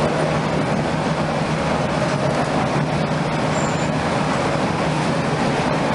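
Interior noise of a NABI 31LFW transit bus: its Cummins-Westport ISL-G natural-gas engine running with a steady hum, under an even rush from the HVAC blowing on high.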